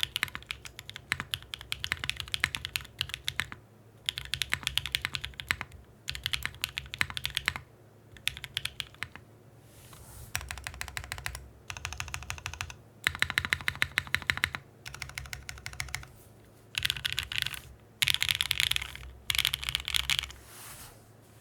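Typing on an Etc65 prototype mechanical keyboard with Green Jacket linear switches lubed with Krytox 205g0, on an FR4 plate with gasket and leaf-spring mounting. Fast runs of keystrokes come in bursts of one to two seconds separated by brief pauses, and the typing stops shortly before the end.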